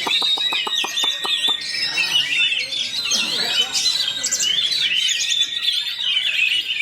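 Oriental magpie-robin (kacer) singing a fast, continuous warbling and twittering song. In the first second and a half a quick rattle of about ten dry clicking notes runs under it.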